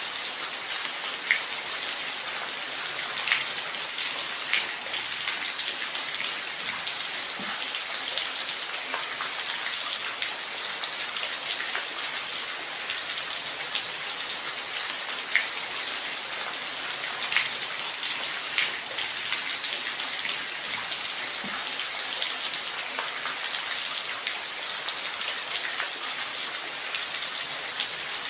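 Steady rain, an even high hiss with scattered single drops ticking sharply every second or two.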